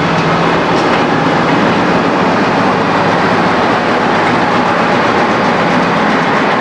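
Two British Rail Class 58 diesel locomotives working together at close range: the steady running of their Ruston Paxman V12 diesel engines, a continuous low drone over general rolling noise.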